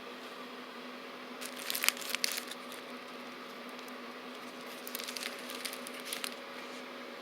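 Crinkling and crackling of wrapped firecracker bricks being handled, in two short bursts: one about a second and a half in, another about five seconds in.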